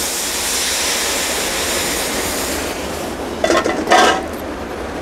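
Red burgundy wine hitting a hot pot of butter-sweated onions, sizzling with a steady hiss that fades after about three seconds as the wine deglazes the pan. A couple of short, sharper sounds follow near the end.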